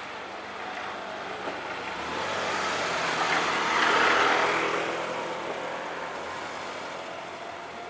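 A vehicle passing over the level crossing, its engine building to its loudest about four seconds in and then fading away.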